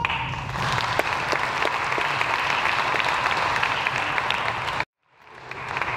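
Audience applauding, many hands clapping. Just before the end the sound cuts out abruptly for a moment, then fades back in.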